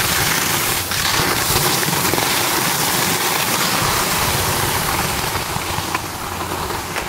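Skis sliding fast over packed snow: a steady hissing rush that eases off a little near the end.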